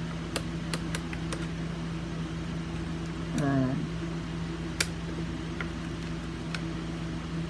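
Small scattered clicks and taps as a screw is undone on the housing of a Potter SH1224 horn strobe, the sharpest one about five seconds in, over a steady low hum. A short murmur of a voice comes about halfway through.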